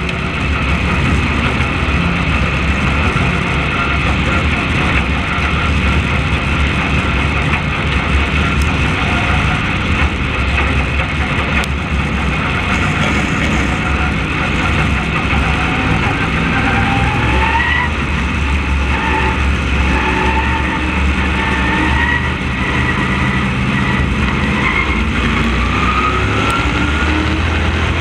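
Onboard sound of a modified race car's carbureted engine running hard at racing speed, a loud, steady rumble. In the second half its pitch rises several times as the car accelerates.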